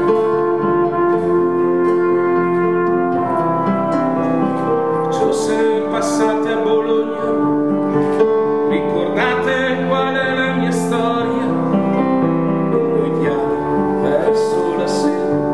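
Live ensemble music: sustained instrumental chords with brief percussion strokes, such as cymbal hits, now and then.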